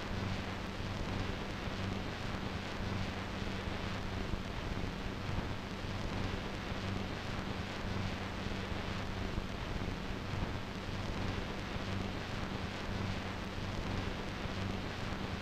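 Steady rushing noise with a low hum underneath that comes and goes.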